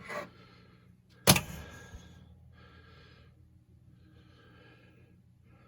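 A single loud, sharp pop from the pinball machine as the Squawk and Talk sound board boots, about a second in, with a short ringing tail. After it come a few faint, brief tones.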